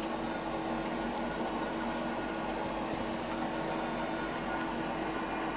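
Steady machine hum of a CNC milling machine at rest after its finishing pass, an even drone carrying a low steady tone.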